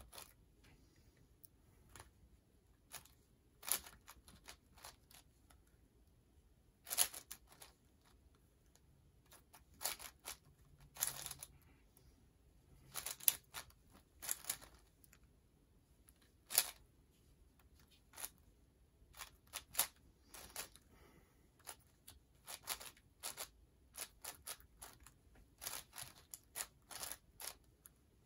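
Plastic speed-cube puzzle being turned quickly by hand: irregular clacks and clicks of the pieces turning, some single, some in fast clusters.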